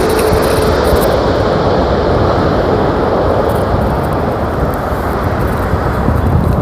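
Boeing 777-300's twin turbofan engines on landing: a loud, steady jet rumble. A whining tone fades out within the first second, and the high hiss thins out as the aircraft passes.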